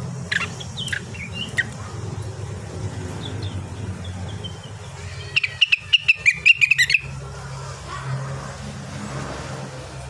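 Cucak wilis (rengganis) songbird, in moult, calling: a few scattered short chirps, then about five seconds in a fast run of around ten loud, sharp notes lasting a second and a half. A steady low hum runs underneath.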